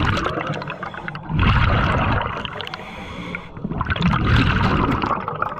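Scuba diver's regulator breathing underwater, heard as surges of bubbling and rushing noise that come and go about every two seconds, three times.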